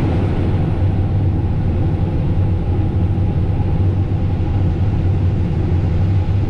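Combine harvester running with a steady, even engine drone.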